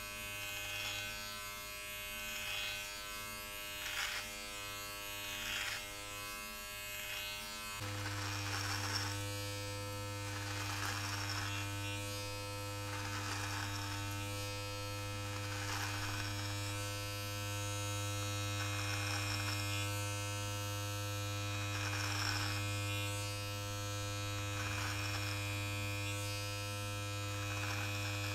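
Manspot body-hair trimmer with a number three guard running with a steady electric buzz as it is passed through beard hair in repeated strokes, each a brief rasp, about one every two seconds. About eight seconds in the buzz grows louder.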